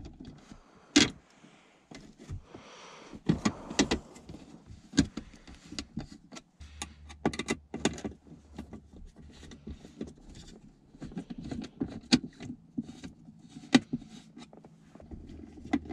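Small brass threaded inserts and screws being handled and worked into a plastic armrest base with a small screwdriver: scattered clicks and knocks of metal on hard plastic, with rubbing and small clinks. A low steady hum comes in about six seconds in.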